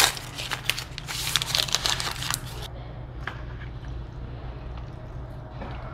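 Close crinkling and clicking handling noise for about the first two and a half seconds, then a few faint clicks over a steady low hum.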